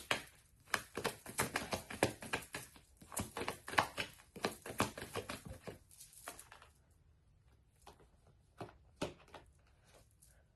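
A deck of cards being shuffled by hand: a rapid run of soft clicks and flicks for about six seconds, then a few scattered clicks.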